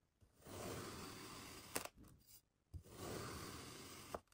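A steel kitchen knife slicing down through molded kinetic sand twice, each cut a soft, grainy crunching hiss lasting a second or so and ending in a sharp click. A brief low knock falls between the two cuts.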